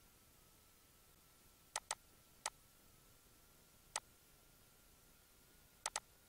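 Computer mouse button clicking: a quick pair of clicks, two single clicks, then another quick pair near the end.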